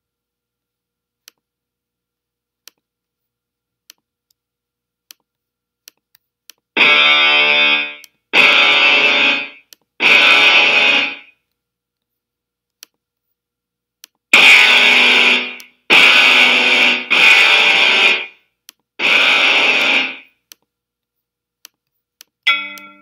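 The tool's distorted electric-guitar voice plays two-note chords, each struck once and held about a second: three in a row, a pause, then four more. The first six seconds are near silent apart from a few faint ticks. Just before the end a short xylophone note sounds.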